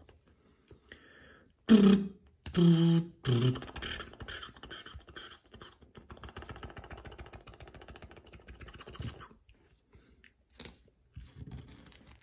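A few short voiced mouth noises about two seconds in, then several seconds of fast fine clicking and scraping as a small plastic toy car is turned over in the fingers, dying down to scattered clicks near the end.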